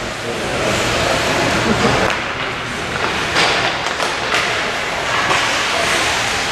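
Ice hockey play in a rink: a steady rushing, scraping noise with several sharp knocks of sticks and puck, the loudest about two, three and a half, four and four and a half seconds in.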